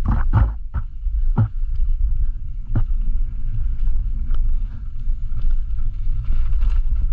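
Mountain bike rolling fast down a dirt singletrack, heard from a camera on the bike: a steady low rumble of wind on the microphone and tyres on the dirt, with several sharp knocks and rattles from the bike over bumps in the first three seconds and lighter ticks after.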